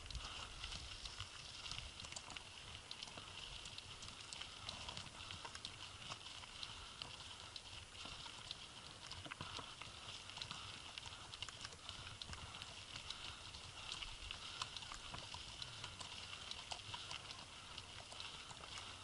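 Horses' hooves clip-clopping on a gravel dirt track, a steady run of irregular small knocks.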